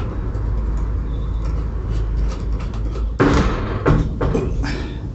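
A long-shafted hand tool turning down the bolts on a motorcycle's rear seat bracket, with a few sharp metal knocks and clicks between about three and four and a half seconds in, over a steady low rumble.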